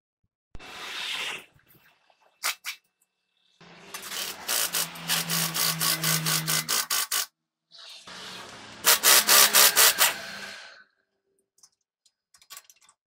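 Pneumatic impact wrench hammering the cap bolts off a truck steering knuckle, run in two bursts of rapid rattling blows of about three seconds each.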